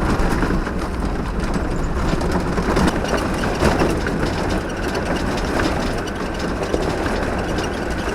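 Land Rover Defender driving on a rough dirt road: a steady rumble of engine and tyres on gravel, with the body and fittings rattling and knocking irregularly over the bumps. The owner calls it the noisy rattling of the Land Rover.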